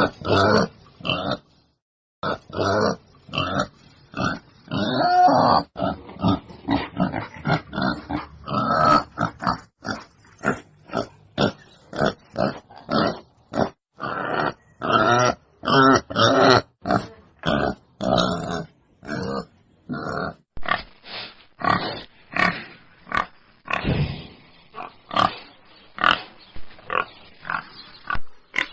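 Wild boar grunting: a long run of short, gruff grunts, about two a second, with a brief pause near the start.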